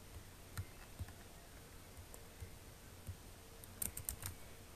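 Faint clicks from a computer mouse and keyboard while buttons are selected and copied in a program: a few single clicks, then a quick run of about five clicks near the end.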